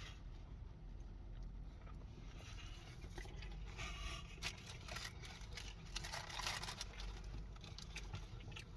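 A person faintly chewing a mouthful of buffalo chicken burger, with soft crunches and short scraping and tearing sounds that come thickest in the middle.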